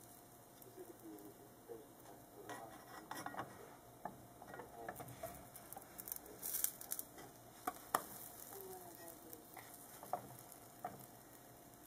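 Pancake batter sizzling faintly in a nonstick frying pan, with a spatula scraping and clicking against the pan as a pancake is flipped a little past halfway through.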